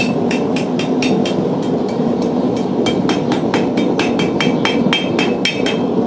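Hand hammer striking a red-hot ring of 5 mm bar stock on the horn of an anvil, about four blows a second with a metallic ring, shaping a belt buckle. A steady low hum runs underneath.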